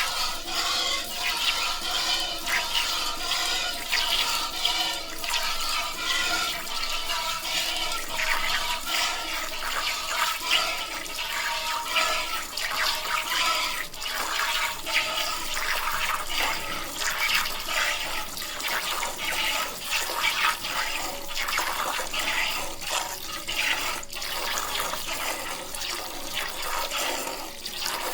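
A cow being milked by hand: streams of milk squirting into a pail in a quick, steady rhythm of repeated strokes.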